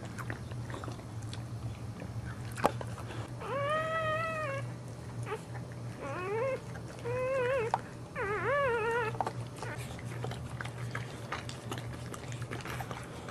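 Newborn Boxer puppy crying as its mother licks it: four short, wavering mewing cries in the middle, the first a single arched call and the last three shakier. A sharp click comes about two and a half seconds in, over a steady low hum.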